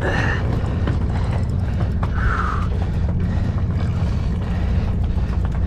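Sportfishing boat's engine running with a steady low drone, with a brief higher-pitched sound about two seconds in.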